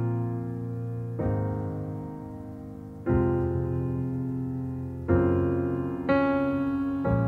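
Slow piano music: sustained chords struck one after another, about every one to two seconds, each left to ring and fade.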